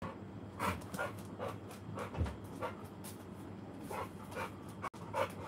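American Bully dog panting steadily, about two breaths a second.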